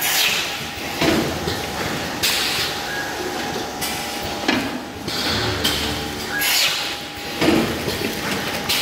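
Automatic tray sealing line running: a steady hum with hissing and clunking bursts that recur about once a second.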